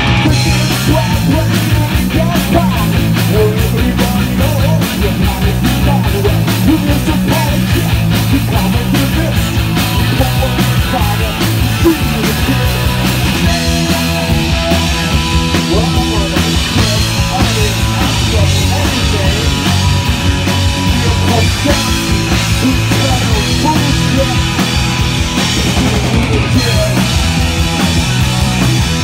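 Live punk rock band playing loud: electric guitar, bass and drum kit, with a singer at the microphone.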